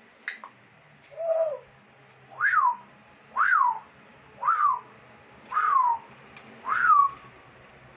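Parrot calling: one short lower call, then six whistled calls about a second apart, each rising sharply and sliding back down.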